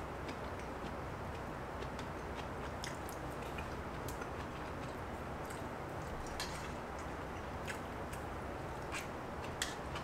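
A person eating: chewing with scattered small clicks of metal chopsticks against a stainless steel tray and bowl, over a steady low hum.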